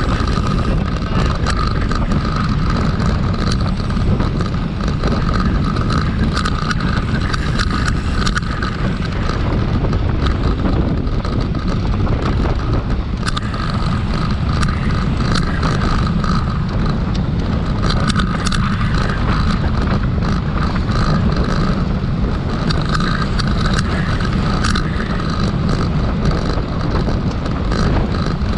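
Bicycle race ambience: a pack of racing bicycles circulating on the track, heard as a steady, loud rumbling noise with scattered sharp clicks.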